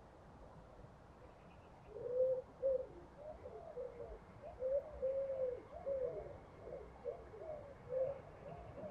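A bird calling in a long run of low, wavering notes, starting about two seconds in.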